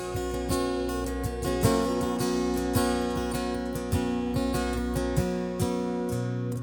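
Worship music: an acoustic guitar strumming over steady held chords, with the bass note changing near the end.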